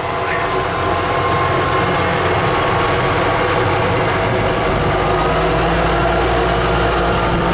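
Gas engine of a 1995 EZGO Workhorse utility cart running steadily under way, its pitch climbing gradually as the cart picks up speed.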